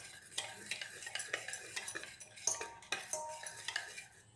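Wire whisk beating thin semolina cake batter in a stainless steel bowl: quick, irregular clicking and scraping as the wires knock against the bowl. It ends with one louder clink that rings briefly.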